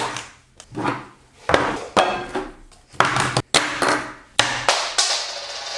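A run of sharp knocks and taps, about eight in all and irregularly spaced, some with a short ringing tail.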